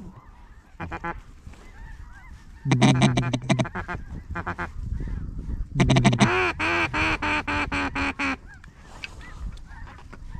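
Duck call blown close by: loud, raspy quacks in short strings, the longest one a little past the middle running into a fast chatter of about two seconds. Fainter calls of live ducks sound behind it.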